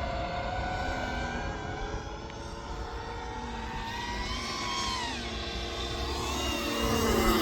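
RC P-51D Mustang model running, its electric motor and propeller mixed with a simulated piston-engine sound from its onboard G.T. Power sound system. The pitch glides up and down, falling about four to five seconds in and sweeping again near the end as it grows louder.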